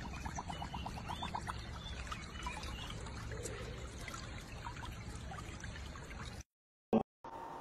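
Water trickling and pouring in a shallow stream. A rapid run of soft ticks sounds for the first second and a half. The sound cuts off about six and a half seconds in, followed by a short blip.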